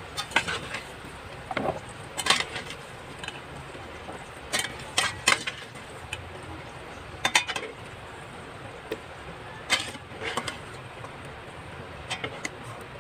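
Slotted metal spatula scraping and clinking against a stainless steel pan as fried potato and carrot cubes are scooped out of the oil, in short, irregular strokes every second or so.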